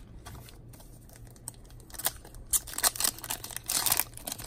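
Shiny foil wrapper of a trading-card pack being handled and torn open. It crinkles and crackles in quick bursts from about two seconds in.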